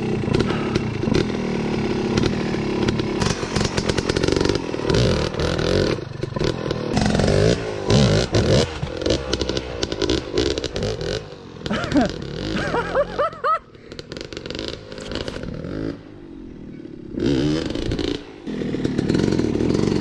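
Yamaha YZ250X two-stroke dirt bike engine running and being blipped hard as the bike hops a large log. The pitch climbs sharply about twelve seconds in, then the engine drops back to a quieter running for a few seconds before it is opened up again near the end.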